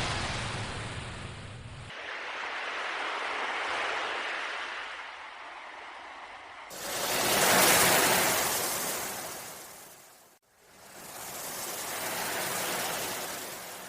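Sea waves surging and washing in a few slow swells, the loudest around eight seconds in. The sound cuts out sharply for an instant about ten seconds in, where one recording is spliced onto the next.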